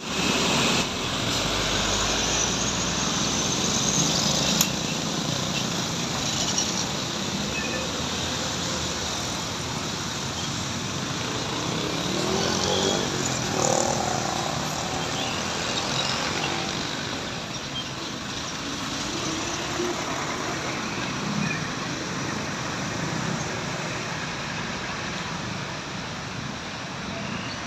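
Steady road traffic noise of vehicles passing along a road.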